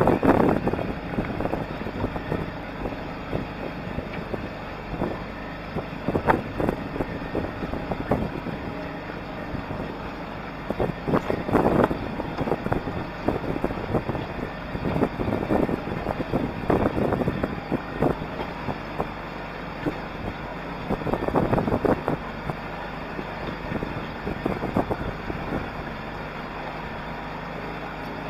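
Wind buffeting the camera microphone in gusts every few seconds over a steady rush of noise.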